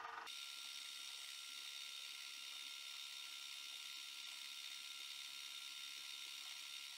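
Faint, steady high-pitched whir with hiss, holding level with no knocks or clicks.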